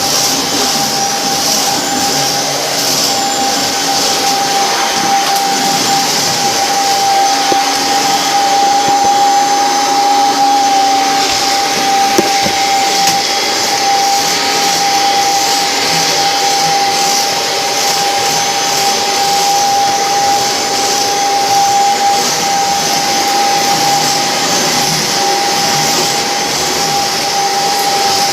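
Vacuum cleaner running steadily, a constant whine over its motor and airflow noise.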